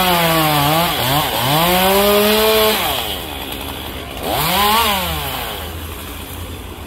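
Two-stroke chainsaw cutting into a redwood trunk at high revs, its pitch sagging and climbing back, then dropping to idle about three seconds in. It gives one short rev about four and a half seconds in and then idles more quietly.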